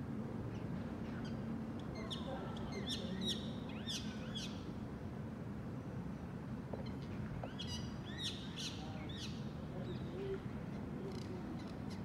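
Rose-ringed parakeets calling in the treetops: two bouts of rapid, harsh, downward-sweeping screeches, one a few seconds in and one about two-thirds through, over a steady low background rumble.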